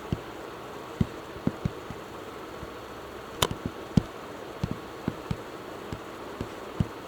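A steady low electrical buzz, with scattered short soft thumps every half second or so and one sharp click about three and a half seconds in: desk and computer-mouse handling noises picked up by the microphone during a screen recording.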